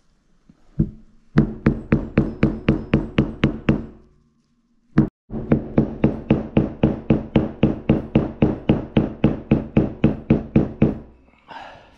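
Rapid, even mallet blows on a flathead screwdriver, driving a 6902RS sealed ball bearing into its seat in a Bafang G60 hub motor. About four blows a second, each with a short ring, in two runs split by a pause about four seconds in.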